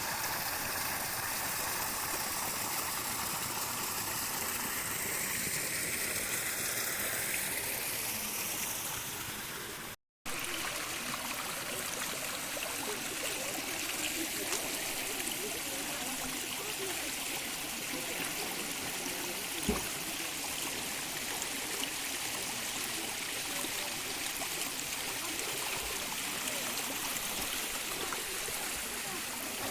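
A stream running steadily, a continuous rush of flowing water. The sound drops out for a moment about a third of the way through, and there is a single knock about two-thirds through.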